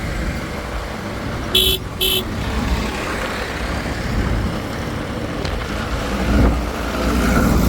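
A vehicle engine running, with two short horn toots about a second and a half in.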